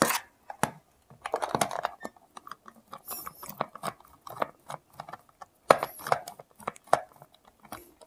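Screwdrivers and the plastic hair dryer case handled on a wooden tabletop: scattered clicks, knocks and short scrapes as the case is taken apart.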